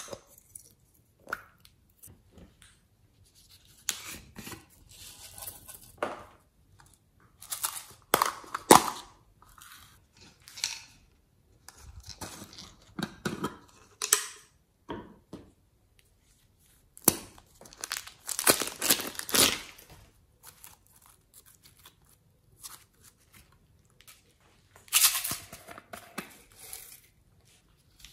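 Plastic toy capsules and a plastic cup being pried open by hand, and their glitter, sequins and sprinkles shaken out into a glass dish. Scattered clicks, rustles and crackling come in short bursts with quiet gaps between, the longest stretch of rustling a little past the middle.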